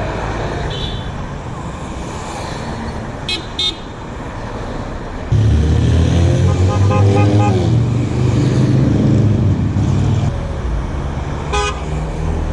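Street traffic with short car horn toots: two quick toots about three seconds in and another near the end. From about five seconds in, a vehicle engine passes loudly for about five seconds, running low with its pitch gliding up and down.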